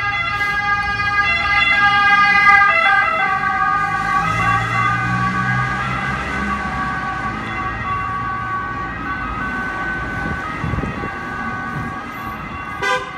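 Emergency vehicle siren sounding in steady tones that step between pitches, loudest a couple of seconds in and then slowly fading, over street traffic. A vehicle rumbles past a few seconds in, and there is a short sharp knock near the end.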